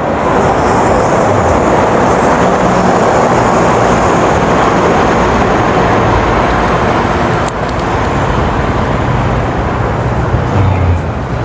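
Steady rumble of road traffic crossing the bridge overhead, a constant wash of tyre and engine noise with a low hum underneath.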